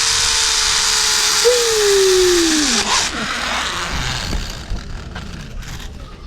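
A high whirring hiss with a steady hum that drops in pitch and dies away about three seconds in, as a motor-driven machine spins down; scattered light knocks follow.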